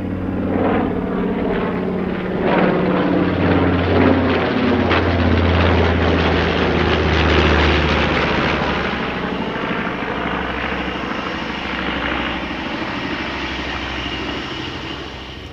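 The two Wright R-2600 radial engines of a B-25J Mitchell bomber running hard. The sound swells a couple of seconds in, then eases off slowly.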